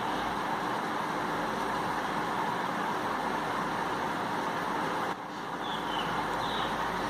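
Steady background noise with a short dip in level about five seconds in, and a few faint high chirps after it.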